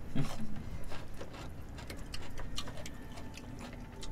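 Eating at a table: scattered light clicks and taps of chopsticks and spoons against bowls and plastic containers, mixed with mouth sounds.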